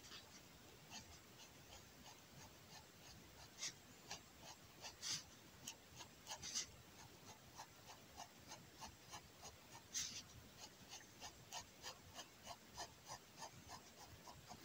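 Fineliner pen hatching on kraft paper: faint, quick short scratching strokes at about three a second, a few a little louder, as shadow is built up on a drawing.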